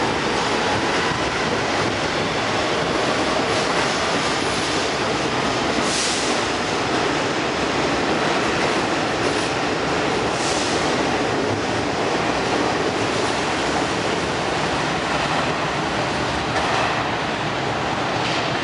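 An R-46 subway train leaving the station and running past on the rails, a steady loud rumble with a couple of brief sharp noises about six and ten seconds in.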